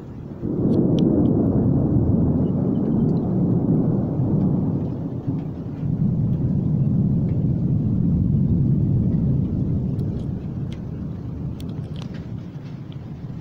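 Thunder from a nearby lightning flash: a sudden loud onset about half a second in, then a long low rumble that eases briefly, swells again and slowly fades over about ten seconds.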